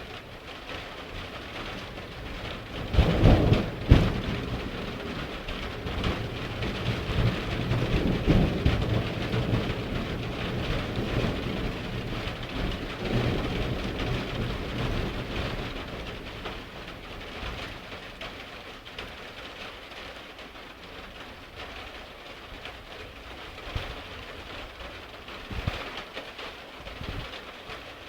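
Heavy rain falling steadily during a thunderstorm. A sharp thunderclap comes about three seconds in, followed by a long, low rumble of thunder that swells and fades over about ten seconds.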